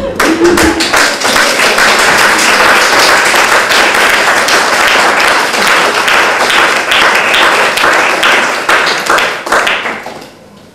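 Small audience clapping, a dense patter of many hands that dies away near the end.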